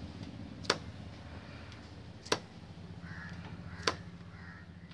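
Hero Honda motorcycle engine idling with a steady low hum. Three sharp clicks come about a second and a half apart over it, with faint crow calls behind.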